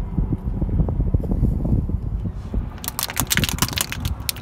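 Car tyre rolling slowly over asphalt with a low rumble, then, about three seconds in, a quick run of sharp cracks and snaps as it crushes a plastic toy bicycle.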